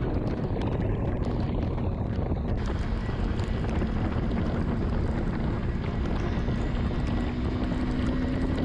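Wind buffeting the microphone over the steady running of a KTM 390 Adventure's single-cylinder engine while riding, with the engine note edging slightly higher near the end.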